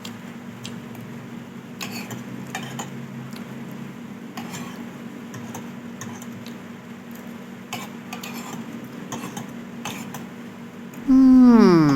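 Spoon clicking and scraping against a bowl of soup and porridge during eating, in scattered light clicks over a steady low hum. Near the end a loud voice-like sound glides down in pitch for about a second.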